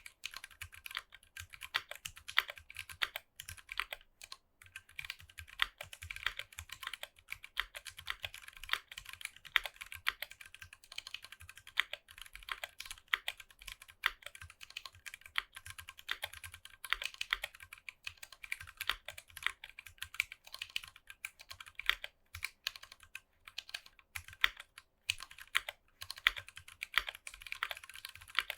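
Typing on a Tofu 60 mechanical keyboard with NovelKeys Box Royal clicky switches and PBT keycaps: a fast, continuous run of sharp keystroke clicks with only brief pauses.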